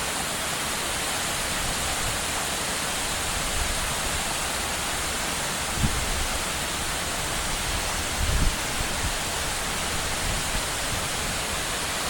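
Bridal Veil Falls, a waterfall gushing with heavy flow after days of rain, giving a steady, even rush of falling water. Two brief low thumps come about six and eight and a half seconds in.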